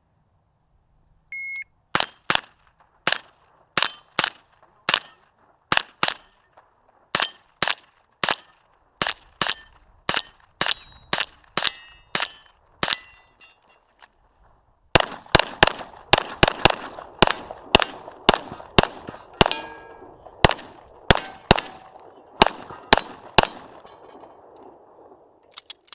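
A shot timer's start beep about a second in, then a timed string of gunshots at roughly two a second, a pause of about two seconds near the middle, and a second, faster string of shots.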